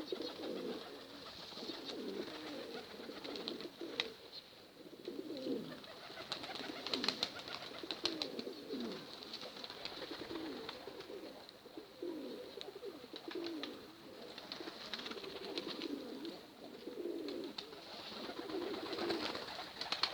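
Pigeons cooing over and over, low warbling coos. Several times there are bursts of quick faint clicks.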